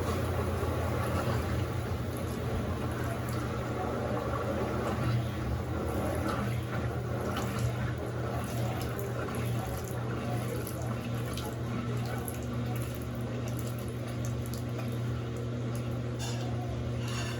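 Electrolux LAC16 top-loading washing machine filling with water, a steady rush of water into the tub over a constant low hum.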